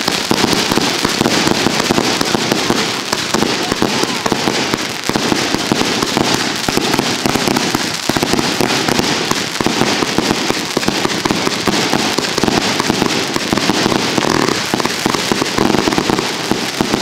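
A multi-shot consumer firework cake firing a dense, continuous barrage of pops and crackles without a break.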